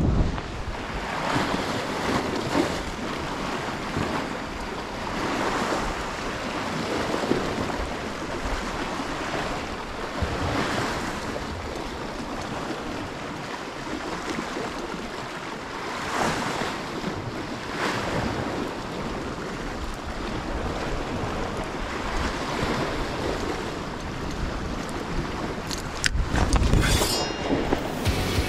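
Sea waves surging and washing against the rocks, swelling and ebbing every few seconds, with wind noise on the microphone. Near the end a louder low rumble briefly rises over the surf.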